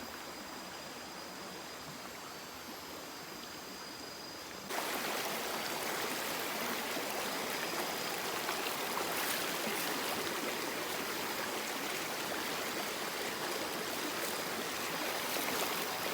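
Stream water rushing steadily, stepping up abruptly in level about four and a half seconds in. A thin, steady high tone sits faintly over it before the step.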